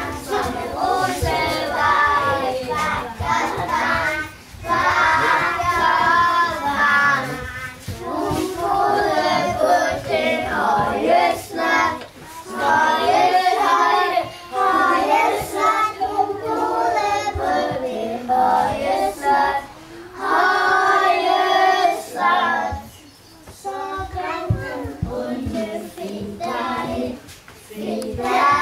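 Group of young children singing a song together, in phrases separated by short breaks.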